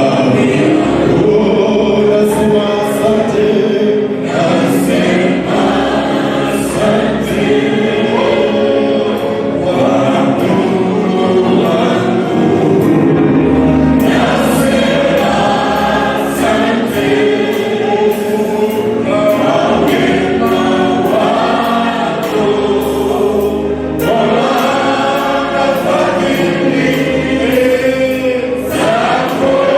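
A choir singing a gospel song, with a steady percussive beat ticking along that grows busier about halfway through.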